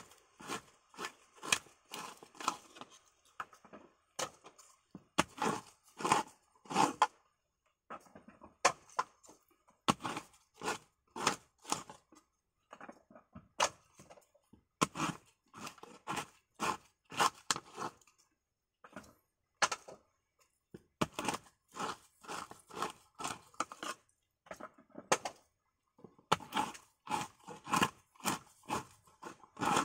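Copra knife prying dried coconut meat out of the half shell: short crunching, tearing strokes, one or two a second, coming in runs with short pauses between them.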